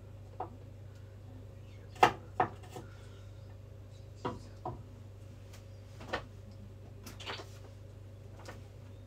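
Scattered sharp knocks and clacks of kitchen utensils and cookware being handled during cooking prep. There are about nine or ten of them at irregular intervals, the loudest about two seconds in, over a steady low hum.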